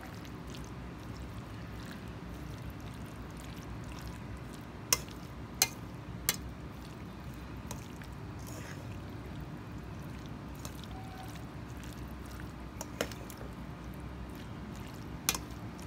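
A spoon stirring mayonnaise-dressed Olivier salad in a stainless steel bowl: soft wet squishing over a faint steady hum, with short sharp clinks of the spoon against the metal bowl, three close together about five to six seconds in and two more near the end.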